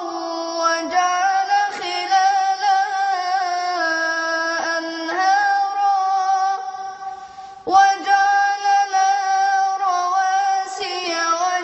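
A boy's solo voice chanting melodically in Arabic, holding long ornamented notes. It breaks off briefly about seven seconds in and comes back strongly.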